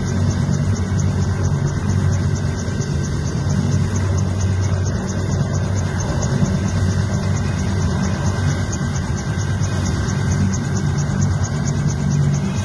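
Air-ambulance helicopter running on the ground, its engine and rotors making a steady drone with a fast, even ticking.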